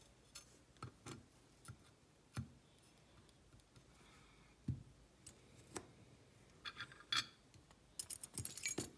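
Faint, scattered clicks and taps of tweezers and small metal lock parts on a brass parts tray, with a quick run of clicks near the end.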